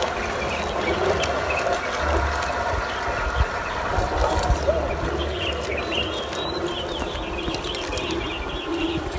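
A wet nylon gill net being hauled in from a lake by hand, its mesh rustling and dripping with faint clicks, over a steady low rumble. Birds chirp from about four seconds in.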